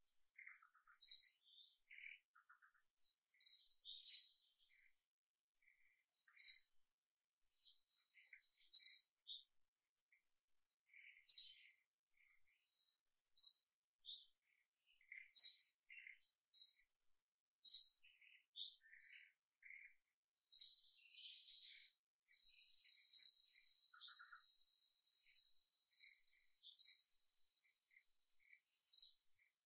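Forest birds chirping: short, sharp, high notes repeated every second or two, over a faint steady high insect buzz that swells a little past the middle.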